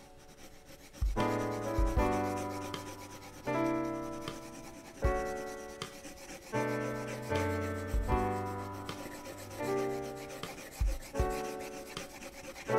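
Pencil shading on drawing paper, a dry rubbing scratch, under calm background music of slow chords struck about every second and a half, each fading away.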